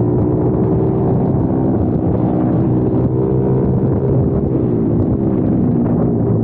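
Kayo TT 140 pit bike's single-cylinder four-stroke engine running hard under throttle on track. The note holds fairly steady, with a slight dip and recovery in pitch about five seconds in as the bike goes into a bend.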